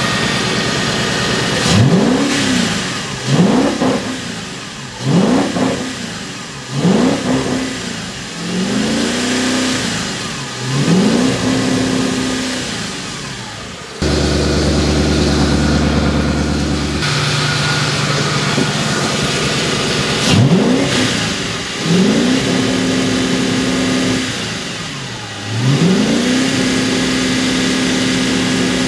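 A swapped-in Audi V8 in a Porsche Boxster idling and being revved in short throttle blips, about nine times, rising and falling back to idle. A few blips are held briefly at higher revs. The engine is being revved with the coolant cap off to push coolant through and bleed air locks from the cooling system.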